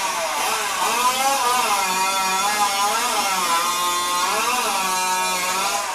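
Modified two-stroke competition chainsaw running at high revs, its pitch sagging and climbing back again and again.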